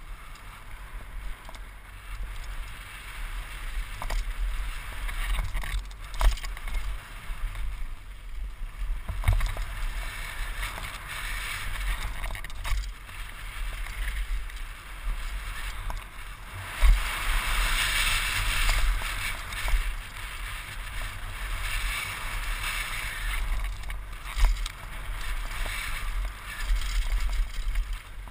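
Mountain bike riding fast down a dirt and gravel trail, heard from a helmet camera: a steady rush of wind and tyre noise with a low rumble, and sharp knocks and rattles as the bike hits bumps. The noise grows louder and rougher for several seconds just past the middle.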